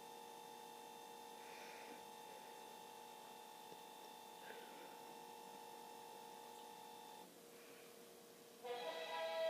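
Faint steady electrical hum of a few held tones from the television, cutting off suddenly about seven seconds in. Music starts about a second before the end.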